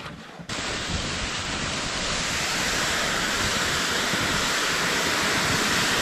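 Plastic Jet Sled loaded with ice augers dragged over snow: a steady hissing scrape that starts abruptly about half a second in.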